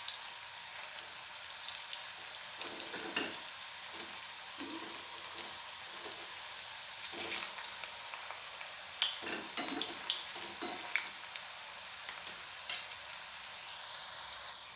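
Medu vadas deep-frying in hot oil in a kadhai: a steady sizzle with scattered crackles and clicks.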